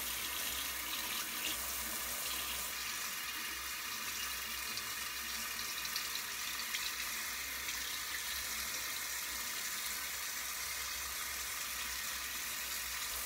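Water tap running steadily into a sink, a constant hiss.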